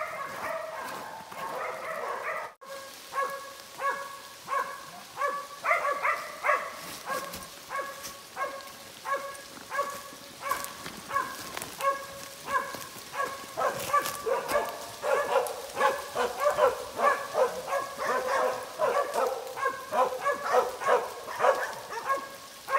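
Cattle dogs barking over and over in short, same-pitched barks, about one to two a second and coming faster in the last several seconds, as they hold cows bayed up in the brush.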